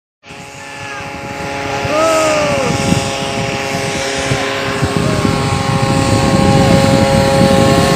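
Homebuilt ultralight aircraft powered by a Kawasaki Ninja 150 RR two-stroke single-cylinder motorcycle engine, droning steadily at one pitch and growing louder as the plane approaches. Voices call out a few times over it.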